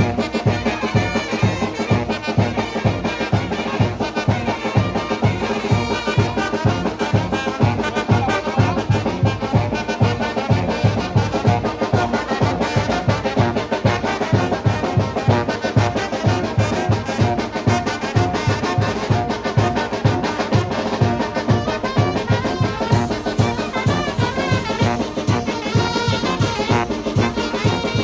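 Brass band playing music for the tlacololero dance: trumpets and trombones over a steady low drum beat.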